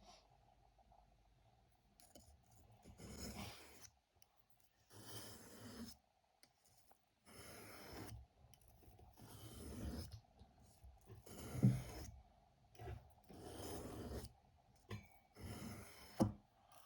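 Steel pocket-knife blade drawn across a wet whetstone in repeated sharpening strokes: a scraping hiss about a second long, roughly one stroke every two seconds, about seven in all.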